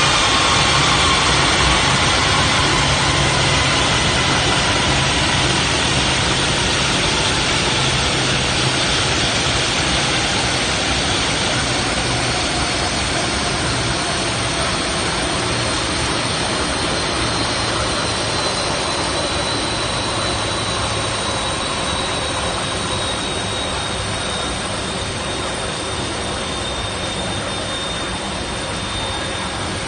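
Lockheed C-5M Super Galaxy's four turbofan engines running as the big jet taxis past: a steady rushing jet noise with high whining tones that slowly fall in pitch, fading gradually as it moves away.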